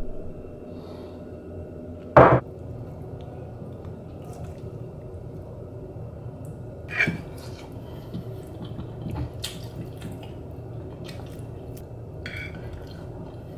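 Fork knocking and scraping on a plate as food is picked up: a few short clinks, the loudest about two seconds in, over a steady low hum.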